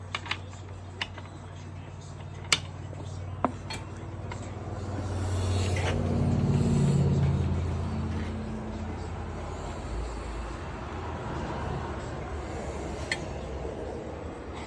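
Scattered sharp metallic clicks and taps of engine parts and tools being handled over a low steady hum, with a passing vehicle rising and falling around the middle.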